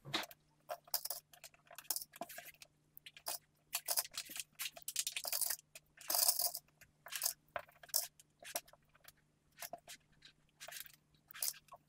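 Plastic sewing clips being snapped one after another onto the edges of layered cotton fabric, with fabric rustling and handling. The clicks are irregular, several a second, over a faint steady low hum.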